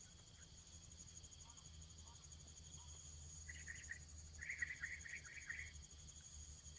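Faint outdoor ambience: a steady, rapidly pulsing high insect trill, with a run of short chirps in the middle over a low hum.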